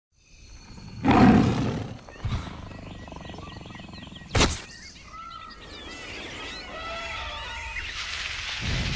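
Jungle sound effects: a big cat roars about a second in, a short sharp crack follows near the middle, and then birds chirp and call over a jungle background.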